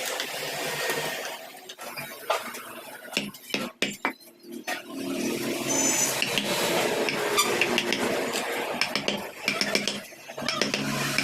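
Hand carving tools working wood: scattered sharp taps, then a quick run of clicks and scrapes, over a steady background hum.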